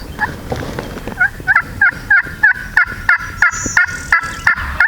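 Turkey call yelping like a hen to draw in a gobbler: a run of about a dozen sharp two-tone yelps, roughly three a second, starting about a second in.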